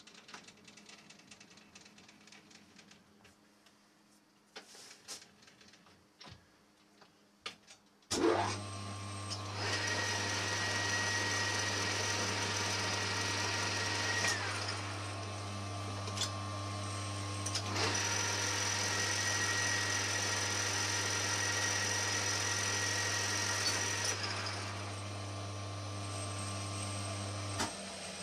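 Light clicks and taps of handling, then a metal lathe's motor starts about eight seconds in and runs steadily with the chuck spinning, a higher whine added over two long stretches, before it switches off just before the end.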